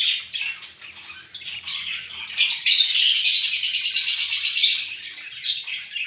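Ducklings peeping in a busy chorus of many short, high-pitched calls, loudest from about two and a half seconds in until nearly five seconds.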